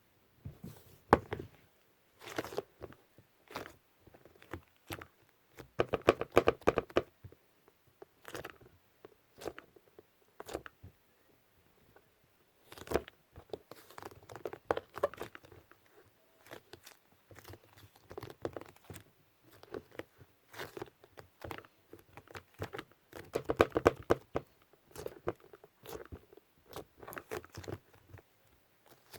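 Lightweight iClay foam clay being worked by hand: irregular crackling clicks and soft tearing sounds in clumps, busiest and loudest about six seconds in and again near twenty-four seconds.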